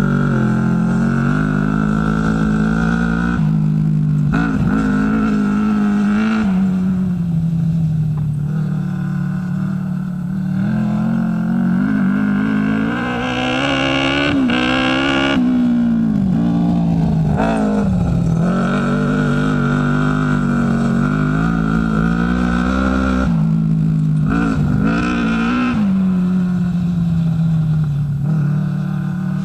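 Kart cross buggy's engine running hard, its pitch rising and falling again and again with the throttle, with short dips where it eases off for the turns.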